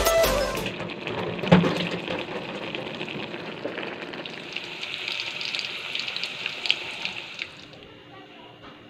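Sautéed radish with chicken and pechay simmering in a pan: a steady bubbling sizzle with small crackles, and a single knock about a second and a half in. The sizzle fades away near the end.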